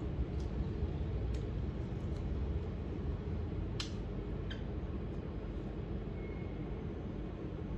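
Steady low background rumble in a small room, with a few faint clicks of a fork against a bowl while eating, the clearest about four seconds in.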